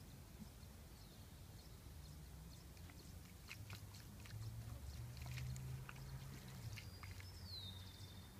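Water poured from a plastic jug splattering onto a bare foot and grass: a run of small splashes and crackles in the middle, over a low wind rumble on the microphone. A short falling whistle comes near the end.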